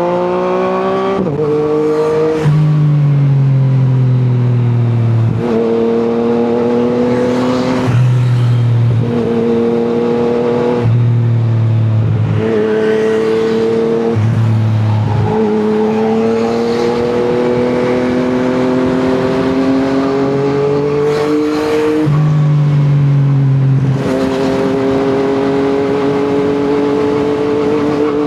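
Yamaha MT-09's three-cylinder engine through an Akrapovic exhaust, running under load. Its note climbs slowly and drops back sharply several times, as at gear changes.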